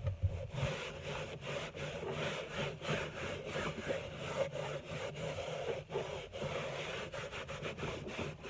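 A cloth rag rubbing back and forth over the surface of a varnished oil painting: Gamsol solvent being worked in to lift Gamvar gloss varnish. It is a continuous scrubbing, with brief breaks between strokes.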